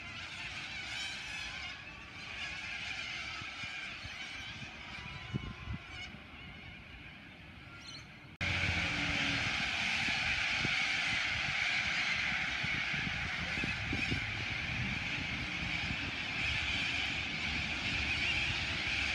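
A large flock of little corellas calling in flight, a dense mass of overlapping calls. About eight seconds in it cuts abruptly to a louder, thicker chorus.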